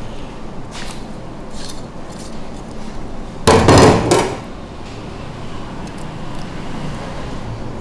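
A short cluster of several quick knocks on a wooden chopping board about three and a half seconds in, from a knife working along the ribs of a split suckling pig, with a few faint knife clicks before it.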